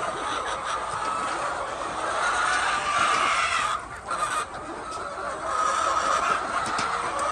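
A flock of chickens clucking together in a continuous, dense chorus that dips briefly about four seconds in.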